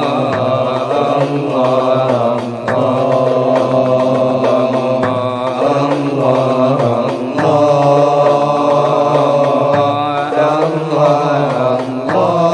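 Male chanting of an Arabic Islamic devotional song (inshad), long wavering sung lines with short breaks between phrases.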